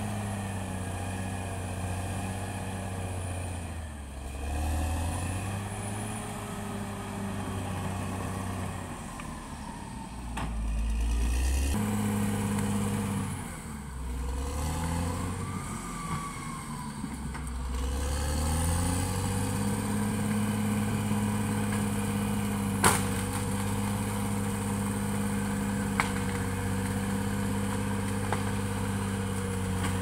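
Caterpillar D6R XL crawler bulldozer's diesel engine running as the machine tracks down a muddy slope. Its engine speed dips and picks up again several times in the first half, then holds steady. Two sharp knocks come in the second half.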